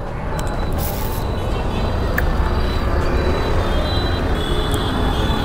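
Steady roadside traffic noise with a low rumble, typical of wind on the microphone.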